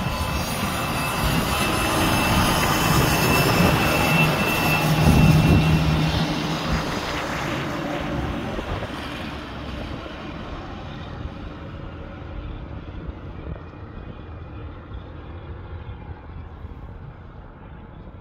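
Heavy diesel trucks passing close by with a deep engine drone, loudest about five seconds in, then fading steadily as they pull away up the road.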